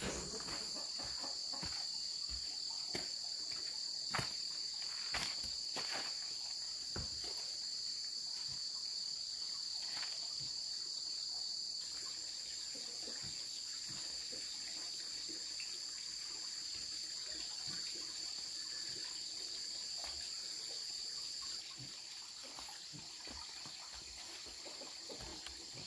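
Insects chirring steadily in a continuous high-pitched drone, easing off a little about three-quarters of the way through. A few faint knocks or clicks are scattered across it.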